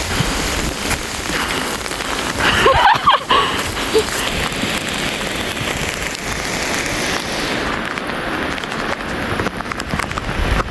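Heavy rain falling steadily, a constant hiss of rain, with a brief louder sound about three seconds in.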